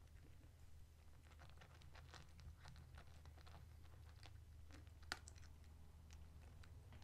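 Near silence: low room hum with faint scattered small clicks and rustles, and one sharper click about five seconds in.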